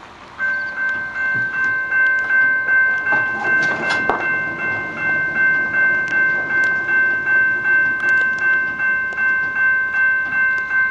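Railroad crossing bell starts ringing about half a second in and keeps up an even beat of about two to three strikes a second, set off by the crossing's motion sensor detecting a car. A brief rattle comes about four seconds in.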